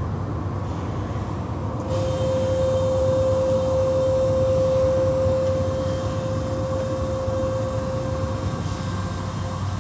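Automatic car wash machinery running: a steady low mechanical hum with water spray and cloth washer strips working, and a steady whine that comes in about two seconds in and fades near the end.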